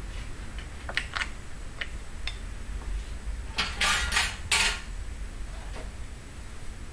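Metal hand tools being handled on a metal workpiece: a few light clicks, then a short clatter of metal knocking on metal a little past halfway.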